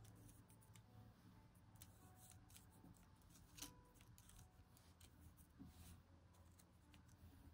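Near silence with faint, scattered small clicks and rustles of hands handling small craft pieces, trying to pull one apart.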